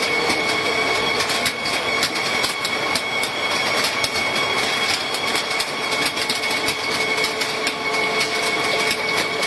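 Chili optical colour sorter running: a steady mechanical noise with a constant high whine and fast, irregular clicking.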